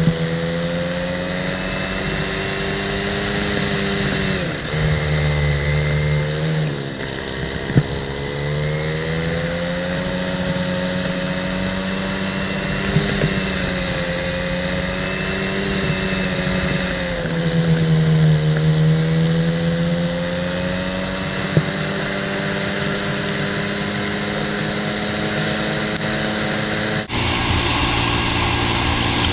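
Racing kart engine heard from on board while lapping, its revs dipping and climbing again several times as it slows and accelerates. The sound changes abruptly near the end.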